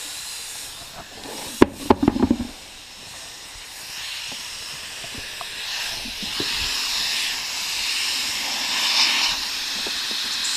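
Compressed air hissing from a tire chuck on the valve stem while a car tire is inflated after its bead is seated. A few sharp clicks come about two seconds in, then a steady hiss builds and carries on.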